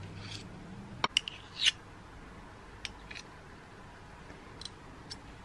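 A metal spoon clicking and scraping against a wire whisk and the rim of a bowl as margarine is scraped off it: a quick run of clicks about a second in, then a few lighter taps.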